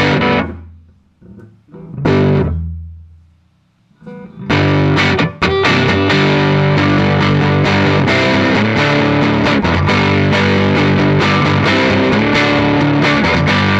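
Semi-hollow electric guitar played through a Dusky D₂O tube amplifier: a chord struck at the start and another about two seconds in, each left to ring out, then from about four and a half seconds continuous chordal playing.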